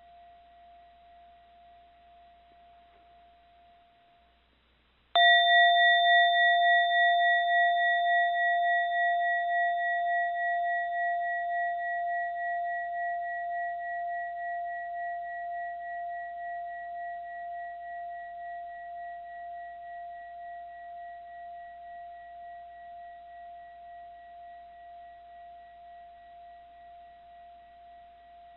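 Mindfulness bell struck once about five seconds in, just after the previous ring has died away. It rings at one steady pitch with a few fainter higher overtones and fades slowly, its loudness gently pulsing as it dies.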